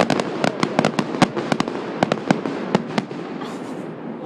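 Fireworks crackling: a dense run of sharp pops, several a second, that thins out after about three seconds and dies away.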